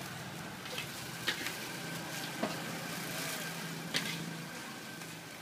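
Hot oil sizzling in a wok of round snacks deep-frying, with three sharp clicks and knocks and a low steady hum underneath.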